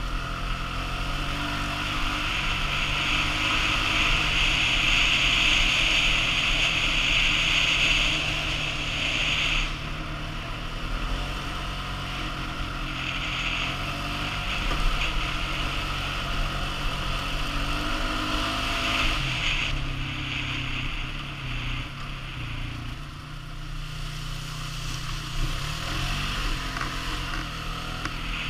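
ATV engine running as the quad is ridden along a rough dirt trail, its note stepping up and down with the throttle. A high rushing noise rides over it, strongest in the first ten seconds.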